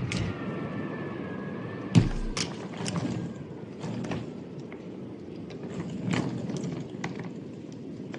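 An aluminium suitcase's telescoping handle being handled: a thump about two seconds in, then scattered light clicks and knocks over a low room rumble.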